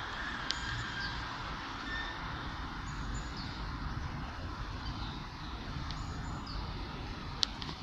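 City street ambience: a steady low rumble of traffic with a few short, high bird chirps, and two sharp clicks, the louder one near the end.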